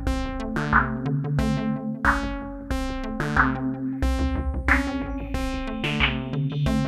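Live electronic music played on modular and analog synthesizers. Short, bright pitched synth notes repeat in a quick sequence over a low bass line, with regular noisy percussive hits from a drum module.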